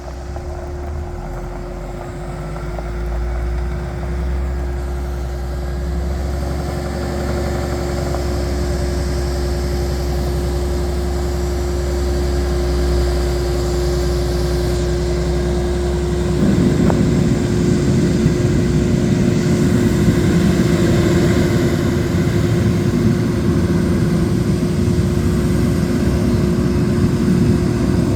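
2009 Peterbilt 389 tractor truck's diesel engine idling steadily, a constant tone riding over its low rumble. A little past halfway the rumble becomes louder and rougher.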